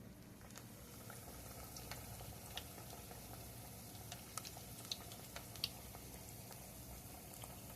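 Food frying in a pan of hot grease: a faint, steady sizzle with scattered pops and crackles.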